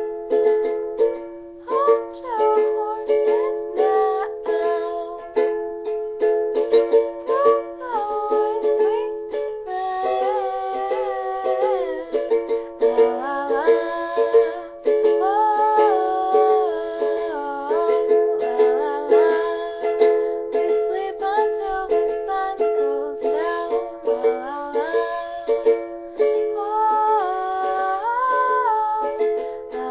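Music: steady strummed ukulele chords with a wavering melody line over them, in a small room.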